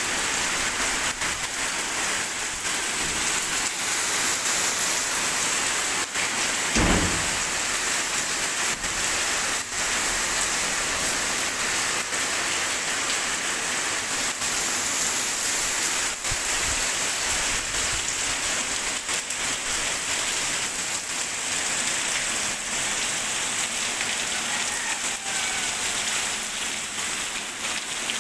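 Heavy rain pouring onto a wet paved lane and its puddles, a steady dense hiss of drops. A brief low thump about a quarter of the way in.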